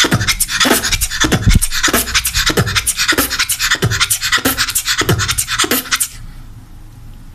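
A young girl beatboxing a rhythmic pattern: deep bass-drum kicks under fast hissing hi-hat and snare sounds, her earlier sounds run together. The beat stops about six seconds in.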